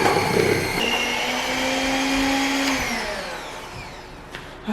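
Electric mixer motor running as it mixes softened butter with sugar and cinnamon into a filling; its pitch shifts about a second in, then it winds down and stops.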